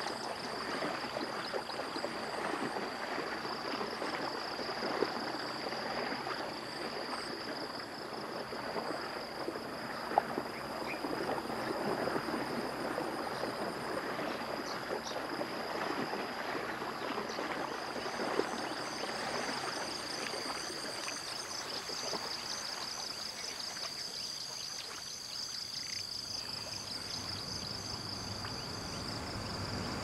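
Water lapping and trickling, under a steady high-pitched insect chorus that turns into an even, pulsing chirr about halfway through.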